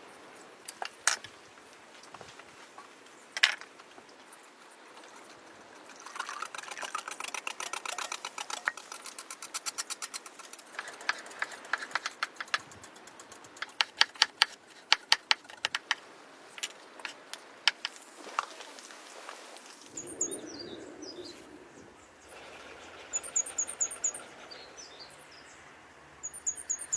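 A run of sharp clicks and knocks, including a fast rattling stretch of many ticks a second, then short high bird chirps in small clusters over the last few seconds.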